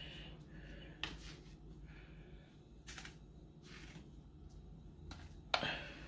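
A plastic coffee scoop scraping ground coffee from a can and tipping it into a coffee maker's reusable filter basket: a few faint scrapes and light taps, the loudest near the end.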